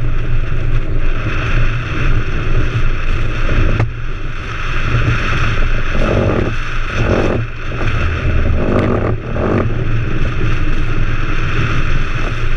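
Engineless go-cart rolling fast downhill on asphalt: a steady rumble of hard wheels on the road with rattling from the cart and wind on the microphone. A few short louder patches come about six to ten seconds in.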